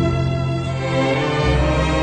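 Background instrumental music with long held notes; a low bass note comes in about one and a half seconds in.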